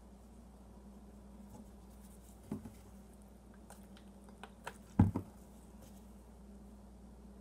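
A plastic bottle being handled on a plastic cutting board: a light click, then a few soft ticks as it is picked up and tipped, and a sharper double thump about five seconds in as it is set back down.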